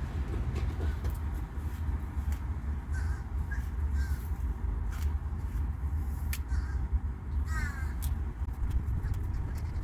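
A few short bird calls, crow-like caws, over a steady low rumble, with scattered sharp clicks.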